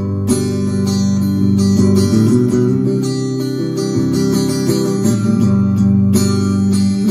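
Electric guitar played through a Valeton GP-200JR multi-effects processor on its acoustic-guitar preset, a run of chords that sounds like an acoustic guitar.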